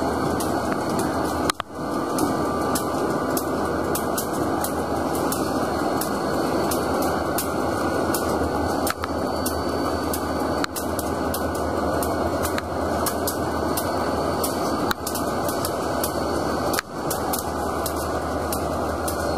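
Canadian Pacific SD40-2 diesel-electric locomotives running as they move slowly along the track, giving a loud, steady engine sound with a low hum. A few short dips in level break it.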